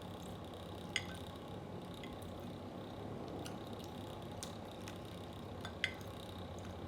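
Eating sounds: quiet chewing with two sharp clicks of cutlery against a dish, about a second in and near the end, over a steady low hum from an electric fan.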